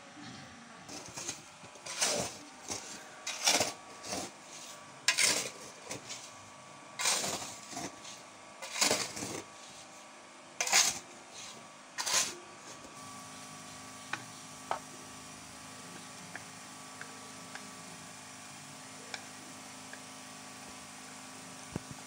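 Handling noise: about ten short scraping, clattering knocks over the first dozen seconds as the plastic pump control box and its cables are moved about, then a faint steady hum with a few light ticks.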